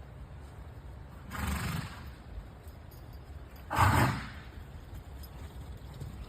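A sneeze: a softer breathy rush about a second in, then a loud, sharp sneeze about four seconds in.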